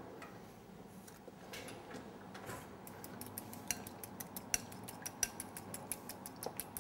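A utensil clinking against a small glass bowl as a salad dressing is whisked by hand: a few faint taps at first, then a quick run of light clinks from about halfway through.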